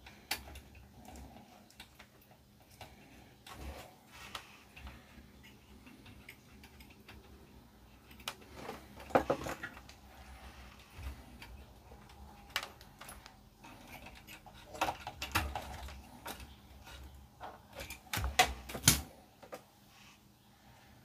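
Scattered light clicks and taps of small parts and tools being handled at a workbench, as a transistor is refitted to an amplifier heatsink with fresh heatsink paste. The loudest clatters come about nine seconds in and again near the end.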